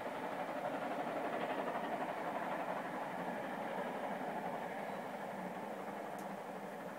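GWR King Class 4-6-0 steam locomotive No. 6024 King Edward I and its express train running away into the distance, a steady rumble that slowly fades as it draws off.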